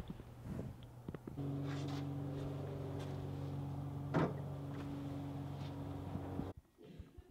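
A click as the doorbell button is pressed, then a steady low hum of several held tones that starts about a second and a half in and cuts off abruptly near the end. About four seconds in comes a single thud, the loudest sound, as the package is set down on the porch.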